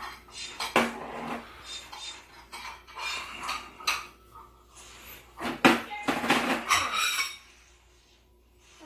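Small ceramic bowls clinking against each other as they are lifted off a stack and set down one at a time on a wooden table: a few separate sharp clinks, then a busier clatter a little past the middle.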